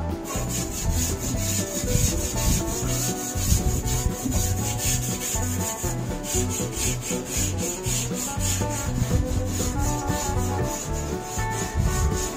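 A stiff wooden-handled brush scrubbing back and forth over the wet, rusty sheet metal of a 1965 Mustang's cowl, in quick, even strokes.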